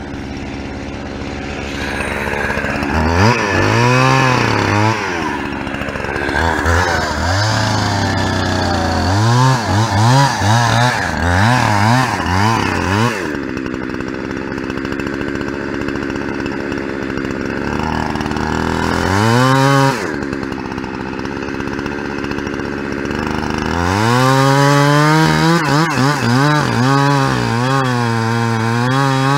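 Two-stroke Husqvarna 365 chainsaw running, its engine speed rising and falling in repeated surges, with stretches of steadier, lower running between.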